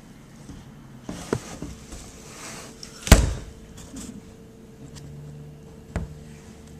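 Handling knocks as the rifle is moved: a few light clicks and one sharp, loud knock about three seconds in, over a faint steady hum.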